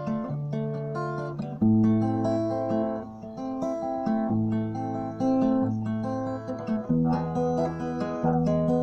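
Background music of acoustic guitar, picked notes over a moving bass line.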